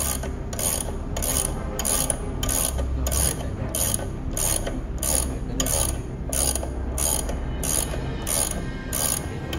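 Hydrajaws M2008 hydraulic pull-out tester being cranked by hand: its handle ratchets in a steady rhythm of about two clicks a second as it loads an epoxy-bonded M6 threaded rod toward failure.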